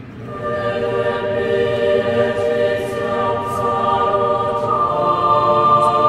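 Choral music: a choir singing long sustained chords that swell in about half a second in and stay loud.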